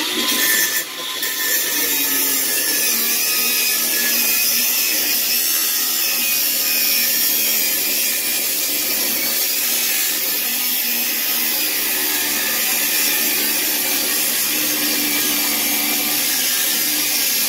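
Angle grinder starting up and then cutting steadily through the metal lock of a storage-unit door, a continuous grinding whine.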